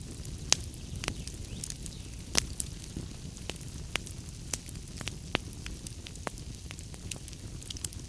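Wood fire burning in a fireplace: a steady low rumble of the flames with irregular sharp crackles and pops from the burning logs, the loudest pops about half a second in and about two and a half seconds in.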